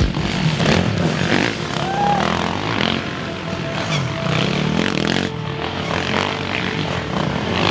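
Off-road racing dirt bikes revving hard, one after another, as they climb a dirt trail, with music playing underneath.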